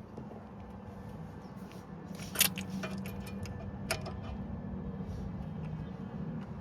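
A low steady hum with two sharp metallic clicks, about two and a half and four seconds in, from hand tools during clutch bleeding.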